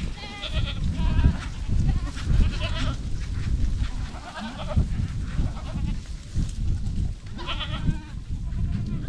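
A herd of Spanish goats bleating, several separate calls overlapping and scattered through, over a steady low rumble.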